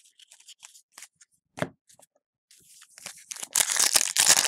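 Cards being handled with light clicks and rustles. From about three seconds in, the plastic wrapper of a trading-card pack is torn open with loud crinkling and tearing.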